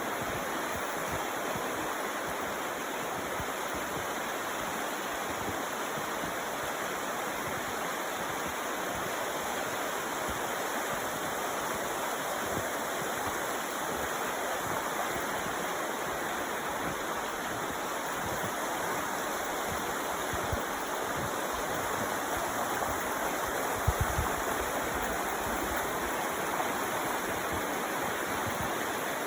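Creek water flowing steadily, a constant even rush. A few brief low bumps come in the last third, the strongest about three-quarters of the way through.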